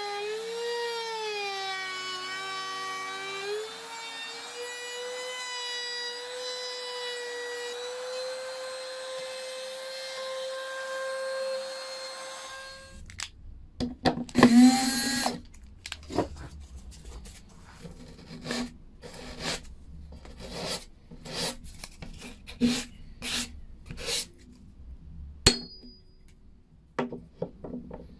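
Small router with a bearing-guided bit cutting a butt-hinge recess in a beech door stile through a plywood jig: a steady motor whine that drops in pitch as the bit bites into the wood and recovers, then cuts off about halfway through. A brief loud whirr follows, then a series of separate sharp knocks about a second apart as a chisel cleans out the recess.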